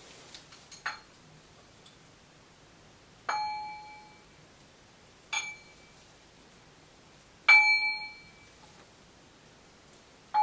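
Metal clanging as objects are handled on a small metal shelf unit: four sharp strikes spaced about two seconds apart, each ringing on at the same pitch, the third the loudest, with a lighter knock about a second in.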